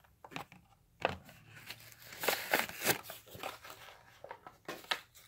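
Hot Wheels blister-card package being handled: crinkling of the plastic bubble and cardboard, with scattered light clicks, starting about a second in.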